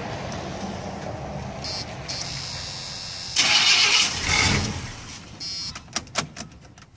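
Square-body Chevy pickup's engine being cranked over by the starter, a steady low pulsing, on a truck whose flywheel is said to be cracked. About three and a half seconds in it catches with a loud burst of engine noise lasting about a second, then falls back and stumbles with a few irregular sharp pops.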